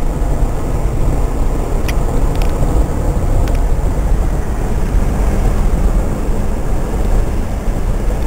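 Vehicle on the move: a steady, loud low rumble of engine and road noise, with a few faint clicks between about two and three and a half seconds in.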